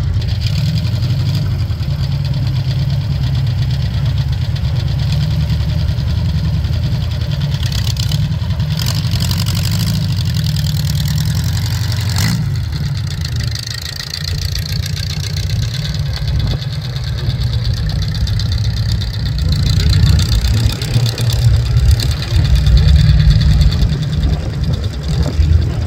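Exposed rear-mounted engine of a rat-rod Volkswagen Beetle running steadily with a deep, loud exhaust note, growing louder and more uneven over the last several seconds as it is revved.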